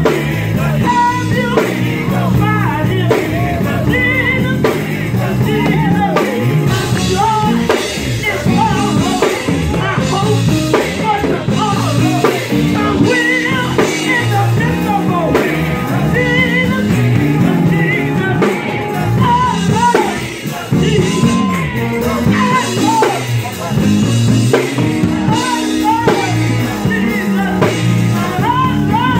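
Live gospel music: voices singing over keyboards and electric guitar.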